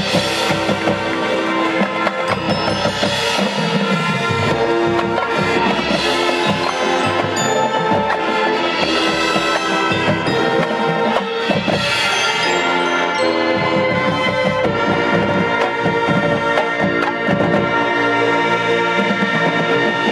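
High school marching band playing: brass and saxophones holding sustained chords over drumline and mallet percussion, with bright accents about every three seconds through the first two-thirds.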